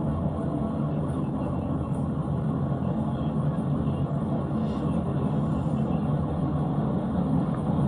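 Steady low rumble of road and engine noise inside a police cruiser driving at high speed during a pursuit.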